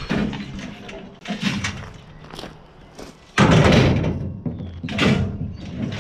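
Lengths of scrap copper pipe thrown onto a metal trailer, landing with a loud clatter about three and a half seconds in and a smaller one about a second and a half later.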